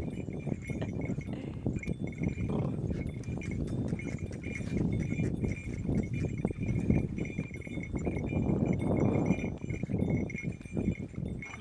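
Horse walking on a dirt track, a small harness bell jingling steadily in time with its steps over the rough, muffled sound of its hooves and movement.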